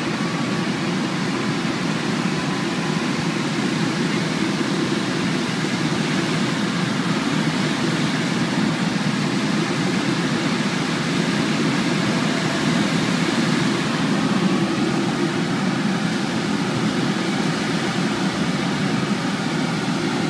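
Steady rushing airflow noise inside the cockpit of a Puchacz SZD-50-3 two-seat glider under aerotow, even and unbroken throughout.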